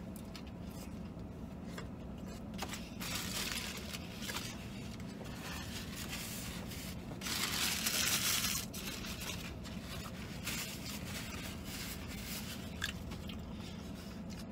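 Chewing a mouthful of fried chicken sandwich, with paper napkins crumpling and rubbing. The napkin rustle is loudest for about a second near the middle. A steady low hum sits underneath throughout.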